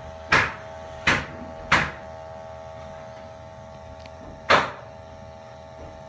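Loud, sharp knocks: three in quick succession in the first two seconds, about 0.7 s apart, then one more about four and a half seconds in, over a steady even hum.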